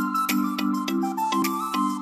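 Background music with a steady pulse of low notes repeating about two or three times a second, a higher melody over it, and light percussion.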